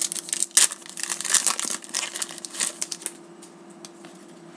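Plastic wrapper of a hockey trading-card pack crinkling and tearing as it is ripped open by hand: a rapid run of sharp crackles that dies away about three seconds in.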